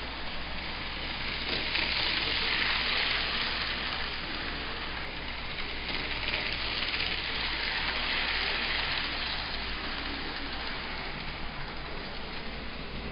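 Model GG-1 electric locomotive running along the track: a steady rolling and motor rush that swells twice as it passes close by, over a steady low hum.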